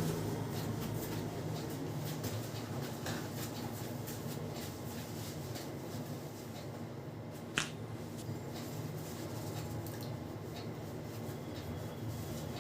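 Head massage by a barber's hands: scattered light clicks and rubbing on the hair and scalp, with one sharp snap or crack about seven and a half seconds in. A steady low hum runs underneath.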